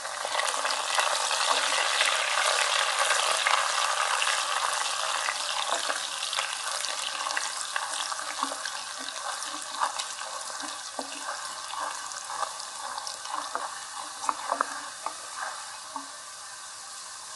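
Soaked chana dal and dry red chillies frying in hot oil in a stainless steel kadai. The sizzle is strongest in the first few seconds and dies down gradually. A wooden spatula stirring the pan adds short taps and scrapes.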